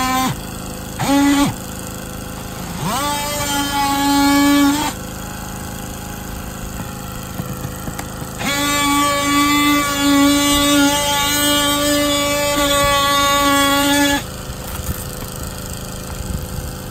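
Handheld cordless power tool cutting into the coated roof surface around a scupper, giving a steady high buzz in several bursts. It runs briefly about a second in, spins up and runs for about two seconds from about three seconds in, then cuts for about six seconds in the second half before stopping.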